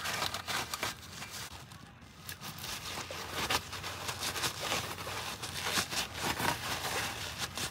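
Crinkling and rustling of a towel being crumpled and rubbed by a gloved hand, wiping up brake fluid draining from a brake caliper, with scattered small crackles and scrapes. It eases off briefly about a second in.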